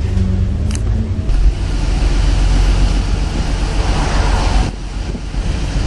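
Wind rumbling on the microphone over road traffic. A vehicle passes with a rush of tyre noise that builds and then drops away abruptly near the end.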